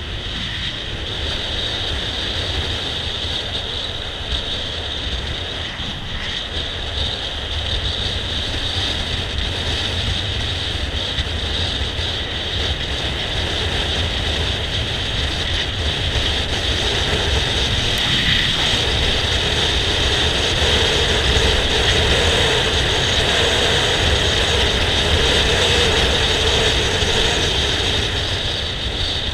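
Wind rushing over the microphone of a GoPro Hero3+ on a moving motor scooter, a steady low rumble and hiss with the scooter's engine and road noise running underneath; it grows a little louder in the second half.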